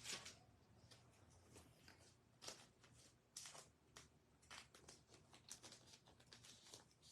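Faint, brief rustles and light scrapes of trading cards being handled and slid against one another, several in the second half.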